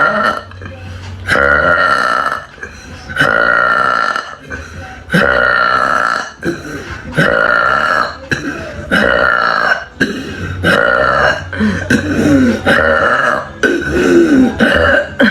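A young woman belching loudly, one long burp after another, about eight in a row. Each burp lasts a second or more, its pitch sagging slightly as it goes.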